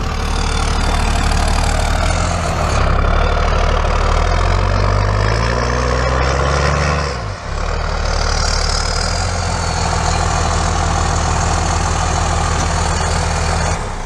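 A 5.9-litre Cummins turbo-diesel in a 2001 Dodge Ram 2500, running through a 4-inch straight-pipe side-dump exhaust. Its engine speed rises for a few seconds as the truck moves up, drops sharply about seven seconds in, then settles into a steady idle, with a faint falling turbo whistle just after the drop.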